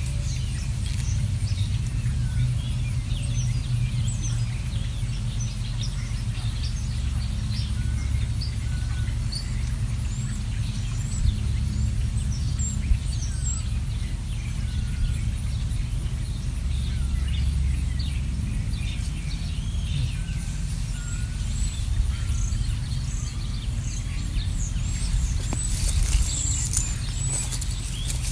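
Many small birds chirping and calling over one another, short high chirps throughout and a busier cluster near the end, over a steady low rumble.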